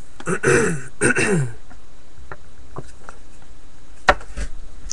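A man's voice making two short sounds that fall in pitch, like throat clearing, followed by faint ticks and one sharp click about four seconds in.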